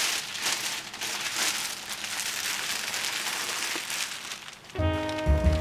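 Plastic waste bag crinkling and rustling as it is carried and handled. Music with a steady bass comes in near the end.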